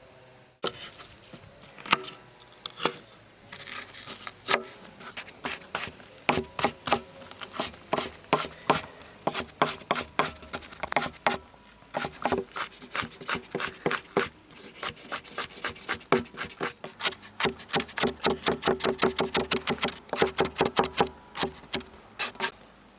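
Kitchen knife chopping on a wooden cutting board: scattered strokes at first, then a steady run that quickens to about five chops a second before stopping near the end.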